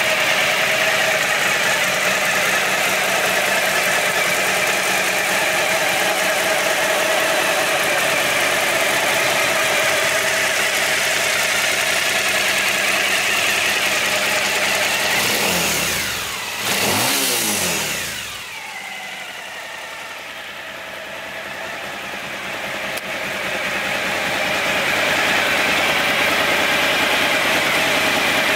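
Suzuki V-Strom 1000's 1037 cc V-twin engine idling steadily. There is a brief change in pitch about halfway through, and then it sounds quieter for several seconds.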